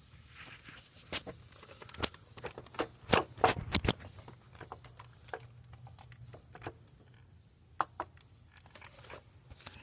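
Scattered metal clicks and knocks as a replacement starter motor is worked into position in a car's engine bay, with a cluster of louder knocks about three to four seconds in.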